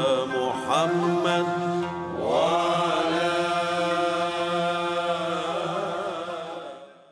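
Closing music: a voice chanting an Arabic invocation in ornamented melismatic phrases over a steady low drone. About two seconds in it slides up into a long held note, which fades out near the end.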